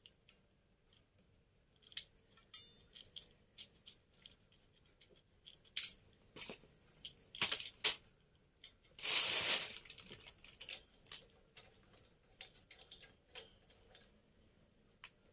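Scattered small clicks and knocks of hard parts being handled and fitted together during hand assembly. About nine seconds in there is a louder rustle or scrape lasting about a second.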